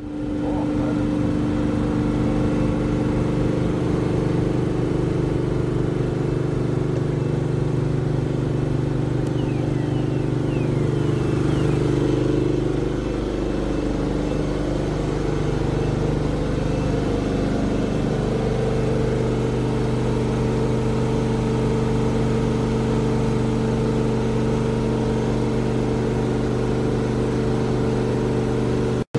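Steady, loud drone of a passenger ferry's engine-room machinery, several hum tones layered together. About halfway through, the mix of tones shifts and a new, higher hum comes up.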